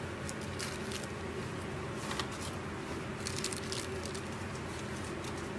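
Plastic bags rustling and crinkling in short bursts as wrapped frozen banana ice cream packets are handled and set into a freezer, over a steady low hum.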